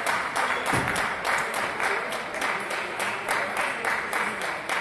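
Spectators clapping in a steady rhythm, about four claps a second, with a single low thump about a second in.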